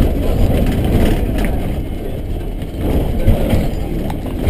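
Rumble of a vehicle driving, heard from inside the cabin: steady low road and engine noise with a few light knocks or rattles.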